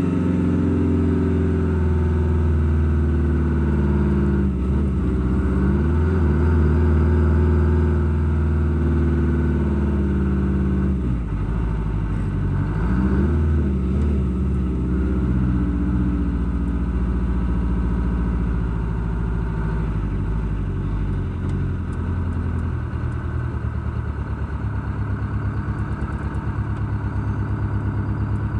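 A car's engine and exhaust running while driving. The engine note shifts in pitch twice, about five and twelve seconds in, then settles into a lower, steadier pulsing note in the second half.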